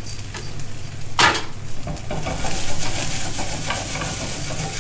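Brussels sprouts frying and sizzling in a pan while being stirred, the sizzle growing stronger from about halfway through. One sharp knock of utensil on pan about a second in.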